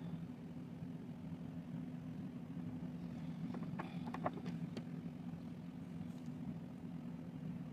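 Steady low machine hum, with a few light clicks and taps about three to five seconds in as the practice hand's plastic nail tips are handled.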